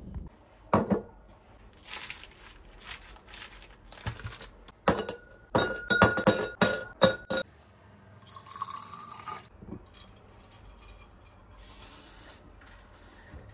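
Ribbed glass vessel clinking and knocking against a hard worktop as it is set down and moved about. A string of sharp taps, densest and loudest about five to seven seconds in.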